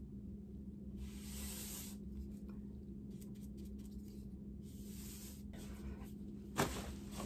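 A paintbrush loaded with chalk paint swishing across a dresser's primed laminate side panel in a few long strokes, over a steady low hum. A brief louder sound comes near the end.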